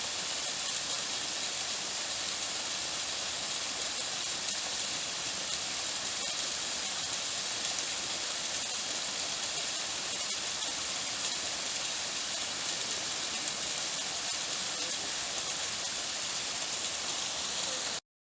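Waterfall's water falling into a pool, a steady rushing hiss that cuts off abruptly near the end.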